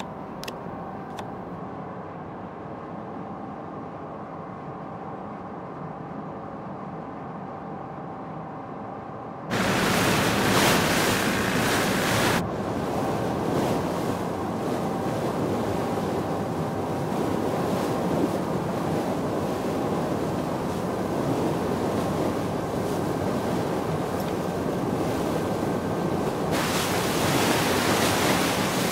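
Ride on a water bus: a steady engine hum under water and wind noise, which jumps suddenly to a much louder, even rush of water and wind about ten seconds in. The rush surges again near the end.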